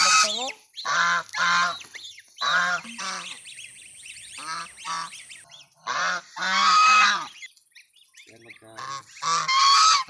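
White domestic geese honking, loud calls coming in short runs of two or three with brief pauses between.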